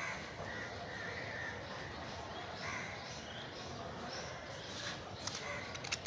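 Budgerigars chirping and chattering softly, with a few sharp clicks near the end.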